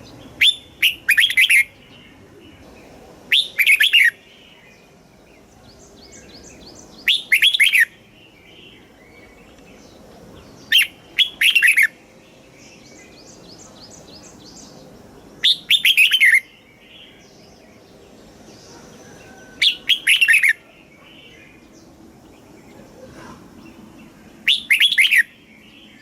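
Red-whiskered bulbul singing: seven short, loud phrases of a few quick descending notes, one about every four seconds. Faint rapid chirping fills the gaps between phrases.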